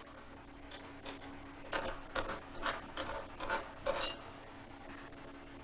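Metal parts and tools clinking against each other as aluminum workpieces are handled at a milling-machine vise: a run of about seven sharp metallic clicks and taps, a few with a short ring, between about two and four seconds in, over a faint steady hum.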